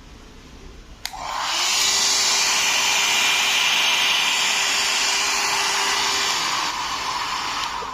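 Syska 1000 W hair dryer switched on with a click about a second in. Its fan spins up to a steady blowing rush with a motor whine, then runs down near the end.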